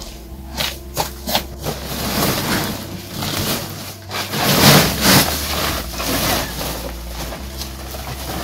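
A large plastic sack rustling and crinkling as it is handled and shaken out, with greens tumbling to the ground; the rustling is loudest a little past the middle. A few sharp clicks come in the first second or two.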